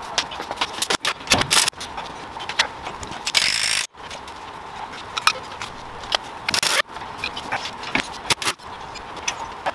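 Irregular light metallic clinks, jingles and scrapes, with a short hissing burst about three and a half seconds in.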